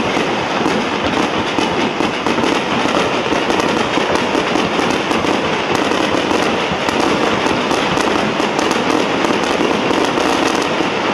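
Aerial fireworks display going off continuously, a dense run of rapid bangs and crackles with no let-up.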